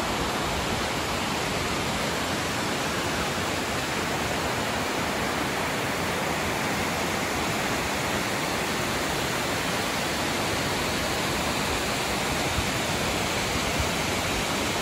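Steady, even rushing of flowing water, like a mountain torrent or waterfall, unchanging throughout.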